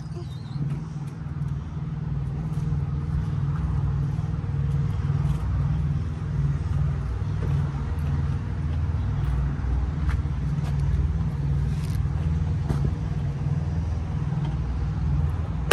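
Steady low rumble of an idling semi-truck diesel engine.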